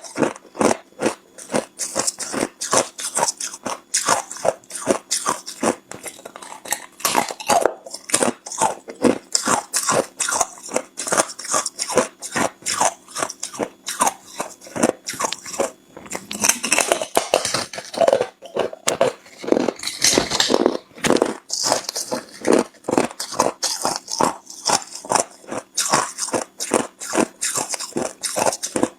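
Hard, clear ice being bitten and chewed close to the microphone: a continuous run of sharp, crisp crunches, several a second.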